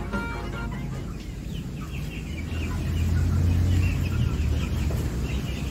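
Native Indonesian kampung chickens clucking, a string of short calls starting about a second and a half in, over a steady low rumble.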